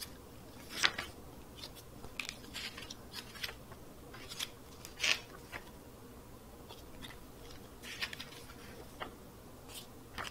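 Pages of a glossy paper booklet being turned by hand: a string of short paper swishes and rustles, the loudest about a second in and about five seconds in.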